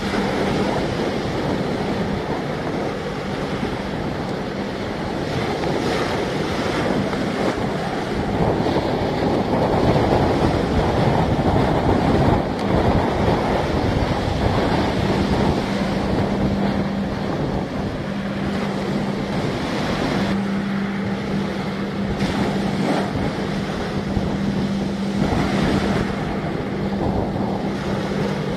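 Wind buffeting the microphone over the wash of choppy water, with gusts now and then. A steady hum sits underneath, fading in the first seconds and back through the second half.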